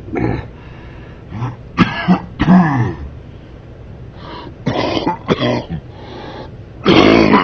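A man coughing and clearing his throat over and over: a string of short, rough coughs, the loudest and longest fit near the end.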